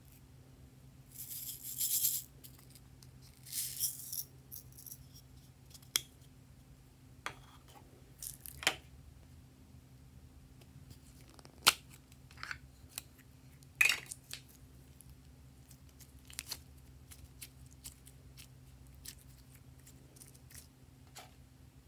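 Hands handling plastic slime cups and add-ins over a glass tray: scattered sharp clicks and taps, with two short rustling hisses in the first few seconds, over a faint steady hum.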